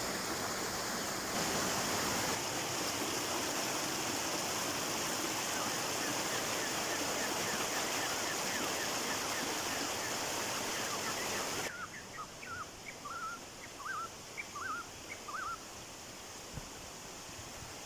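Rushing water of a waterfall, a steady, even noise. About twelve seconds in it cuts abruptly to a much quieter scene where a bird gives a quick series of short chirps.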